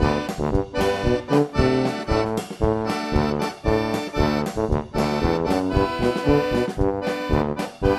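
Background music: an instrumental tune with sustained notes over a steady beat.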